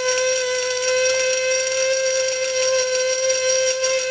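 Small electric blade spice grinder running at full speed with a steady high whine, grinding whole spices such as coriander seeds.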